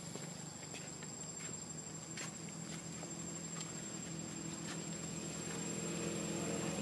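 Outdoor ambience: a steady high-pitched insect drone with scattered faint clicks, and a low engine hum that grows louder toward the end.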